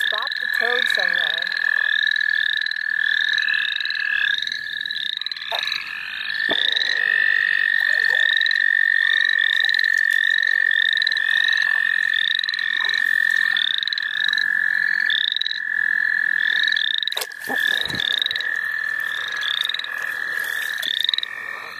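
Spring chorus of frogs and toads calling: a long, unbroken high trill, typical of American toads, with many short rising calls above it, about two a second. A couple of brief knocks or rustles near the end.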